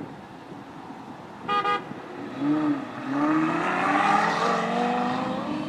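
A car horn gives two short toots, then a car engine revs and accelerates, its pitch rising and falling and then climbing over the last few seconds.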